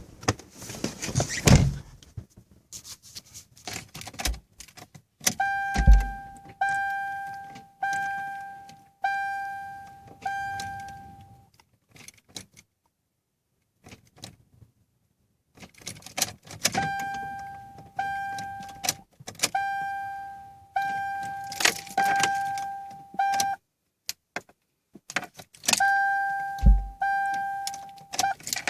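Toyota Camry's dashboard warning chime dinging in runs, each ding with a sharp start that fades, about one a second, with keys jangling and sharp clicks in between and two low thuds, as the car is tried but does not start.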